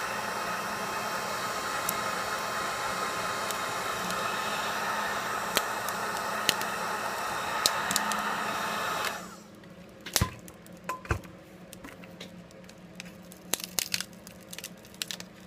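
Heat gun blowing steadily to soften the screen adhesive, switched off about nine seconds in. It is followed by scattered small clicks and crackles as the front glass assembly is pried away from the phone.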